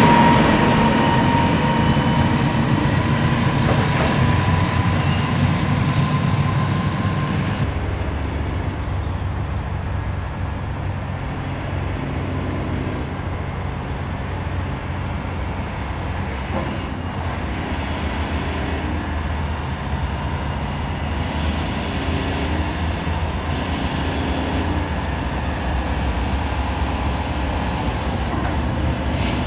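Bell B25D articulated dump truck's diesel engine running as it passes close by, with a high steady whine. After a cut about eight seconds in, a second articulated dump truck, a Volvo, is heard running in the distance as it approaches, slowly growing louder.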